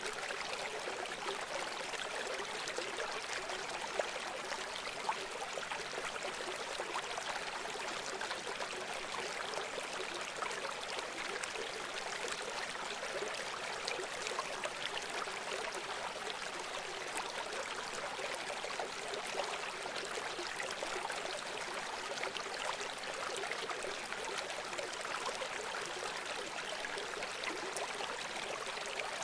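River water flowing in a steady rush, with small splashes and gurgles.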